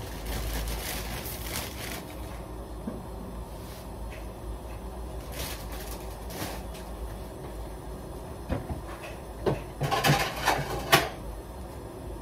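Kitchen things being handled: scattered knocks and clicks, busiest about ten to eleven seconds in, over a steady low hum.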